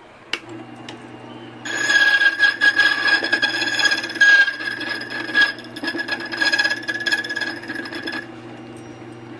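Borkey key duplicating machine switched on with a click, its motor humming; about a second and a half in, the spinning cutter wheel starts cutting the key blank, a loud high ringing tone with a rasp that rises and falls as the carriage traces the original key, and near the end it drops back to the motor hum.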